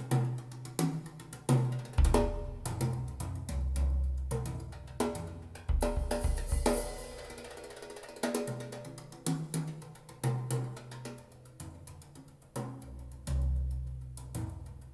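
Recorded music with a drum kit (snare and bass drum) and a bass line, played back through Radiotehnika S-90 loudspeakers.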